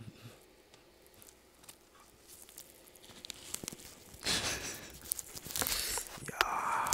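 Clear plastic mouth shield and earphone cable rubbed and handled right at the microphone: crinkling rustle and small clicks, mostly in the last three seconds, after a short knock at the very start.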